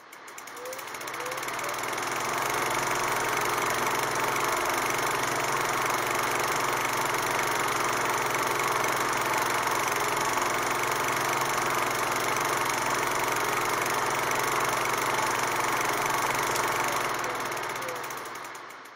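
Film projector running: a steady, rapid mechanical clatter with hiss. It fades in over the first two seconds and fades out near the end.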